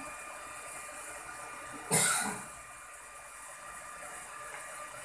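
Steady background hiss with a few faint steady tones, and one sudden loud burst of hiss about two seconds in that dies away within half a second.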